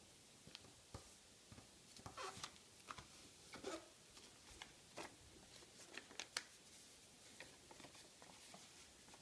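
Faint rustling and crinkling of a sheet of office paper being folded and pressed into a paper airplane, with small crackles and taps scattered through it.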